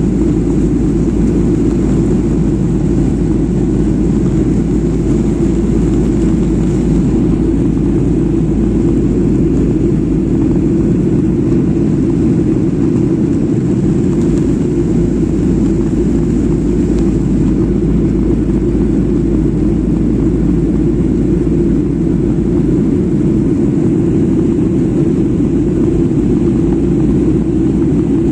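Jet airliner cabin noise in flight: a steady low rush of engine and airflow noise that stays even and unbroken.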